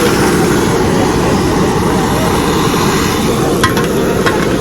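Boiled eggs frying in a pan at a street stall over a steady low roar, with a few sharp clicks near the end.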